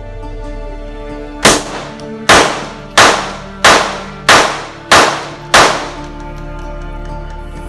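Seven handgun shots fired in quick succession, about one every two-thirds of a second, each trailing off into a short echo, over steady background music.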